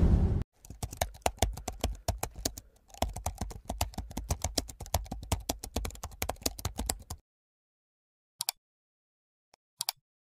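Computer-keyboard typing sound effect: rapid key clicks for about six and a half seconds, with a short break near the three-second mark, as on-screen text is typed out. A whoosh ends about half a second in, and a few single clicks of a mouse follow near the end.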